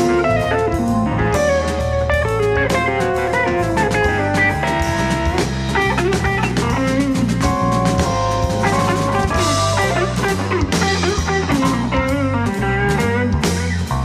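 Instrumental music, a blues-style band with guitar and drum kit playing a steady beat.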